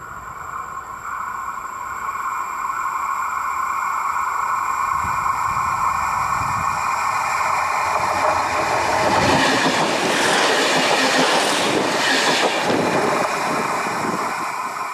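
Siemens IC tilting train passing directly over the track at about 60 km/h: the rails sing with a steady high ringing as it approaches, then a loud rush and clatter of wheels on the rails as it goes overhead, from about nine to thirteen seconds in, fading as it moves away.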